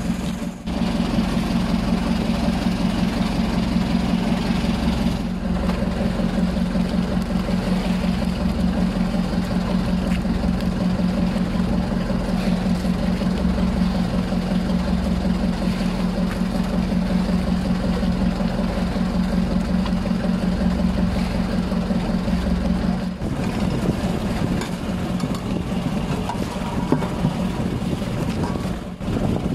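A small boat engine running steadily with an even, low pulse; the pulse weakens about twenty-three seconds in.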